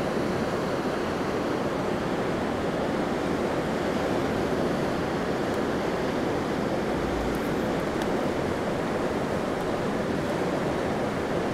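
Steady rushing of a fast-flowing river running past the rocks, an even, unbroken wash of water noise.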